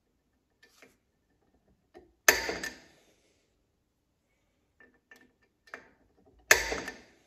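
Hand-scribing layout lines on an aluminium plate with a steel scriber: faint scratches and ticks, broken twice by a sharp metal-on-metal clink with a short ring, about two seconds in and again near the end.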